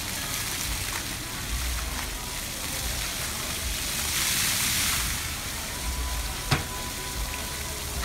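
Water jets of a deck floor fountain spraying and splashing onto the tiles, a steady hiss that swells about halfway through as the jets shoot up tall. A single sharp click comes about six and a half seconds in.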